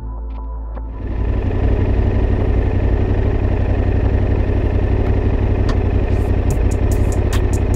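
Yamaha Ténéré 700's parallel-twin engine running with a steady low rumble, which comes up louder about a second in. From about six seconds in, a quick run of sharp ticks sits over it.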